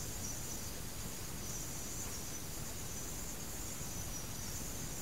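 Pause in the talk: a steady high-pitched chirring like crickets or other insects, over an even background hiss.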